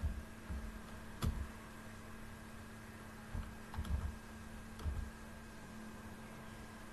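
Computer mouse and keyboard clicks: a handful of separate, irregular clicks, each with a dull thud, over a steady low hum.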